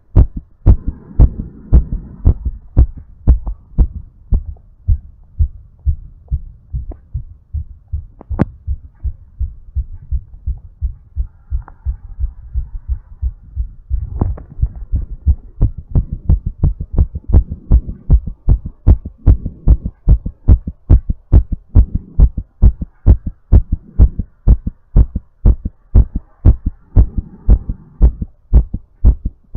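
Human heart beating in a steady lub-dub rhythm while it recovers after exercise, with a faint breathing wash swelling in and out behind the beats at times.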